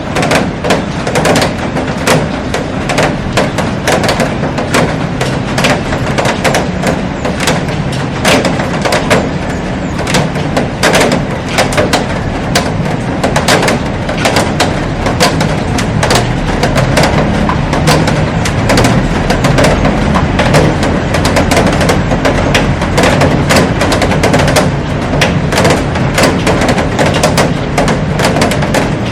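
Heavy rain on a glass roof: a dense, irregular patter of sharp drop impacts over a steady hiss.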